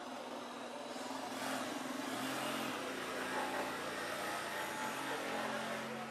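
Jigsaw cutting through a softwood board, its motor running steadily. The saw sound builds about a second in and holds.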